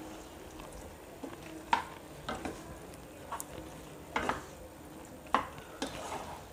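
A spatula stirring fried chicken pieces through onions and sauce in a cooking pan, scraping and knocking against the pan about six times, over a low sizzle of frying.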